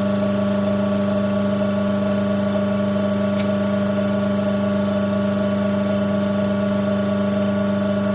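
The wash motor of a plastic twin-tub washing machine, a capacitor-run electric motor, running with a steady hum, just after being wired back in to its timer and capacitor.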